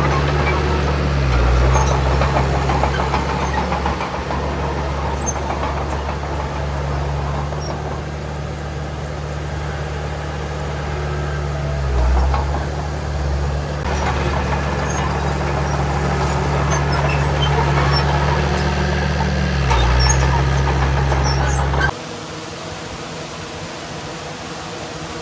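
Diesel engine of a Shantui DH17C3 bulldozer running steadily, its pitch dipping briefly three times. About three seconds before the end the sound cuts off abruptly to a quieter, steady engine hum.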